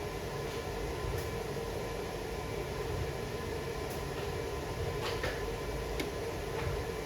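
Steady low mechanical hum of running shop machinery, with a few faint, short clicks scattered through it.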